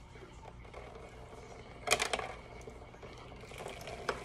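Wooden skewers being pulled from a water-filled plastic bag and dropped into a plastic tub: a brief clatter of light clicks about two seconds in, with a few fainter clicks near the end.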